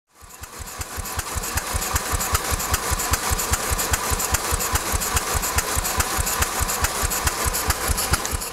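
Homemade steam motorcycle's steam engine running steadily, with rapid, even exhaust beats over a hiss. It fades in just after the start.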